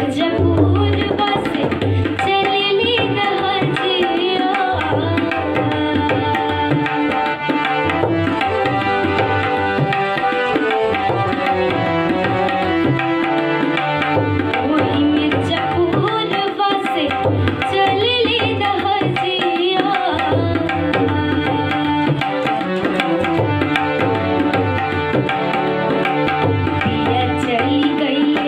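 A young girl singing a Bhojpuri song in a light-classical style, her voice moving in ornamented, gliding phrases, over a steady tabla rhythm.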